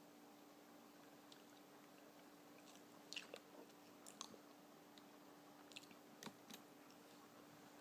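Faint wet mouth smacks and clicks of someone eating sticky peanut butter and honey off a spoon, a handful of short ones from about three seconds in, over a low steady hum.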